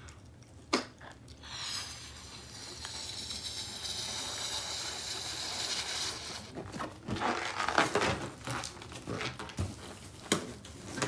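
A red rubber balloon being blown up by mouth: a long steady rush of breath into it for about four and a half seconds. Then clicks and rustling as the inflated balloon is handled.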